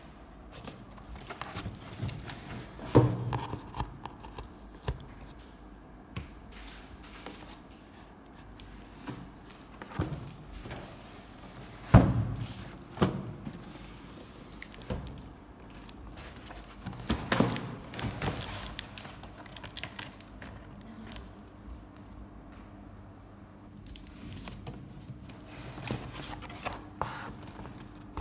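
A cardboard appliance carton being handled and unpacked: irregular scraping and crackling of cardboard and packing tape, broken by a few sharp knocks, the loudest about halfway through.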